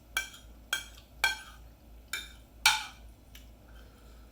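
Cutlery striking a plate five times while eating, each a sharp clink with a short ring.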